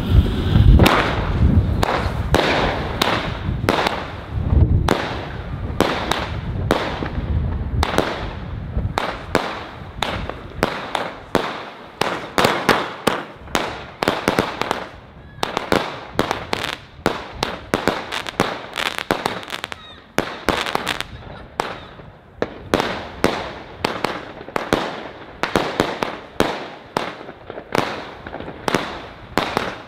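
'Cake Insane' firework cake (battery) firing shot after shot in quick succession, roughly two a second, each shot a sharp bang with a short crackle after it.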